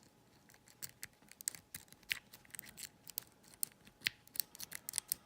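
Rapid, irregular small metallic clicks and ticks of a snowman rocker pick being rocked and slid in the keyway of a Corbin wafer cabinet lock, the pick striking the wafers.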